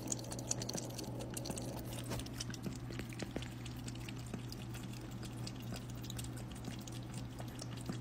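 A cat lapping at water in a bathtub drain: a quick, irregular string of small wet clicks and trickles over a steady low hum.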